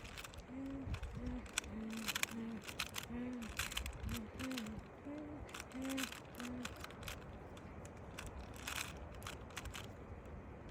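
A 3x3 Rubik's cube being turned fast during a speed solve, its plastic layers clicking and rattling. Through the first two-thirds there is also a run of about a dozen short, low hooting notes, each at a slightly different pitch, roughly two a second.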